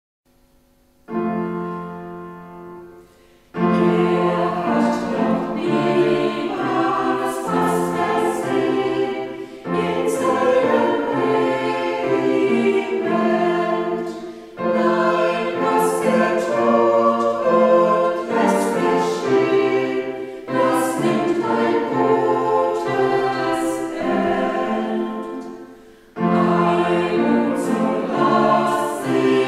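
Small church choir of men's and women's voices singing a sung piece in phrases, with short breaks between them. About a second in, a single chord sounds and fades before the full singing begins.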